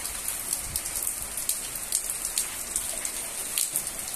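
Heavy rain falling steadily in a high hiss, with close raindrops ticking irregularly on a nearby surface.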